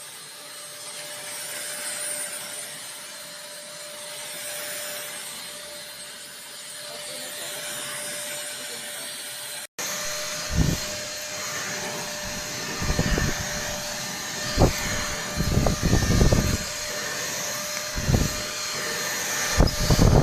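Deerma DX115C handheld vacuum cleaner running with a steady whine and hiss. The sound cuts briefly about ten seconds in, then the vacuum runs on with several short low thumps as it is handled and knocked against surfaces.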